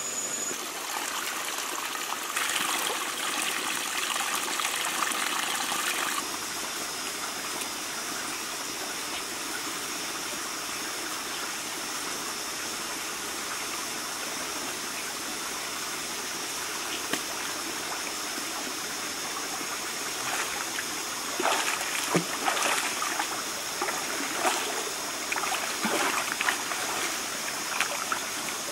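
Water trickling and running steadily, with a steady high tone above it. From about twenty seconds in come irregular splashes as a person wades into a shallow muddy pool and bathes.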